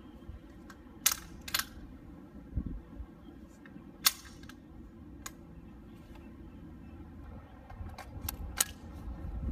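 Sharp mechanical clicks and snaps from handling an XTC-G1 airsoft electric rifle: a few single clicks at the receiver, the loudest about four seconds in, then a quick cluster of clicks near the end as the magazine is seated.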